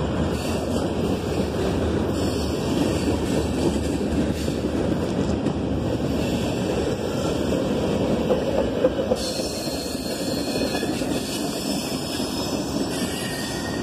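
Freight cars of a passing train, covered hoppers, a flatcar and tank cars, rolling by on steel wheels: a steady close rumble of wheels on rail. A faint high-pitched wheel squeal joins in from about nine seconds in.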